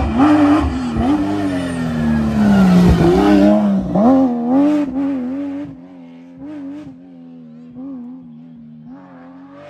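Porsche 996 rally car's flat-six engine at full throttle, its pitch rising and dropping with gear changes as it comes close and passes. About halfway through it fades sharply as the car drives away, still faintly heard changing revs in the distance.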